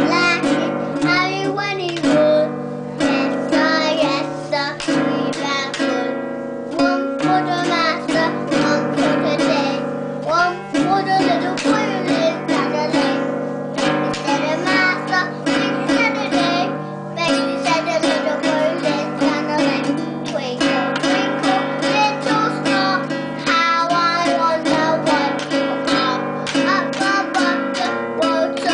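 A young child singing while strumming a small acoustic guitar, the same string tones held steady under the sung melody.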